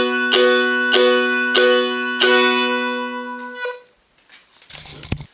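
Seagull/Godin M4 spruce mountain dulcimer, tuned G-D-G, strummed down on a B chord at the second fret: four even strums about 0.6 s apart over a steady drone. The last chord rings on and is damped a little under four seconds in, followed by a faint low thump near the end.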